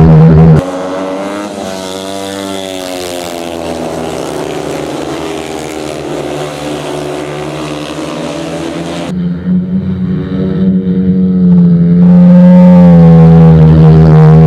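Speedway motorcycles' single-cylinder engines racing: several engines rising and falling in pitch. They are very loud as the bikes sweep past close for the first half-second and again from about two-thirds of the way in, and quieter and farther off in between.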